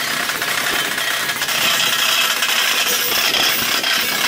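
Outdoor parade and crowd sound played back fast: a dense, high-pitched jumble of hiss with many quick ticks and clinks, and no voices that can be picked out.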